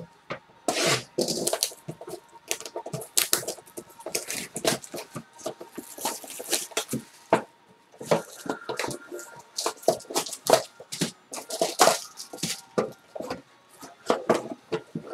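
Plastic shrink wrap being torn and crinkled off a cardboard trading-card box, in irregular crackles and rustles, then the box's lid being pulled open.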